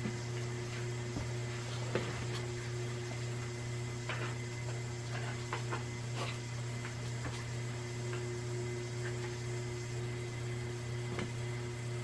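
1997 Hampton Bay Rockport ceiling fan running with a steady low electrical hum from its motor and a few faint ticks. With the pull chain on low the motor buzzes a bit: it is trying to spin faster than its small start-winding capacitor allows.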